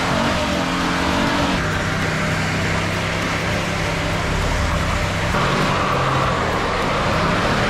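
Chevrolet Silverado pickup engine held at high revs while its rear tyre spins in the grass in a smoky burnout. The engine note steps in pitch about a second and a half in and again about five seconds in.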